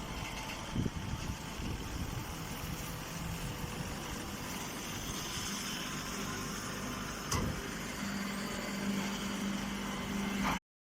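An engine-driven machine running steadily, with two short knocks and a steady hum that joins about eight seconds in. The sound cuts out completely for a moment near the end.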